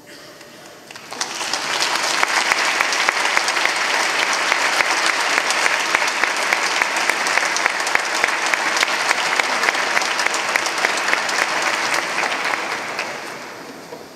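Audience applauding. The applause swells up about a second in, holds steady, and dies away near the end.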